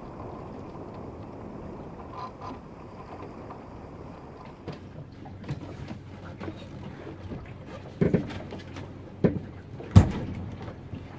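Wind and water noise aboard a small sailing yacht going upwind, with scattered clicks and knocks of deck gear from about halfway and three louder thumps near the end.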